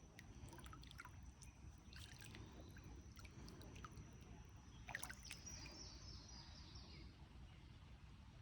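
Faint outdoor ambience: a low rumble like wind, scattered sharp clicks, and faint high bird chirps, with a quick run of short bird notes about five seconds in. A thin steady high tone sits underneath.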